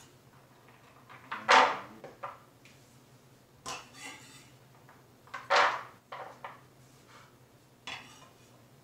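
A chef's knife blade scrapes diced raw pumpkin across a wooden cutting board and into a plastic bowl, four strokes in all. The strokes about one and a half and five and a half seconds in are the loudest.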